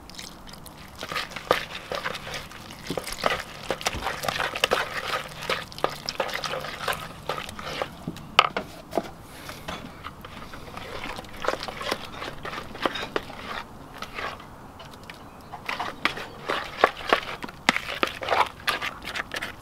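A plastic fork stirring and scraping thick zucchini pancake batter in a plastic bowl, with many quick clicks and taps against the bowl. The clicks thin out for a few seconds in the middle, then pick up again.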